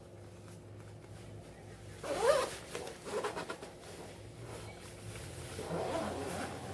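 Zipper of a windbreaker jacket being pulled, loudest about two seconds in, with quicker, quieter zipper sounds after it.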